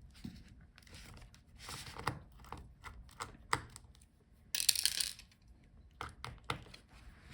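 Small clicks and taps of a screwdriver and laptop parts being handled while hinge screws are taken out, with a brief scrape about halfway through.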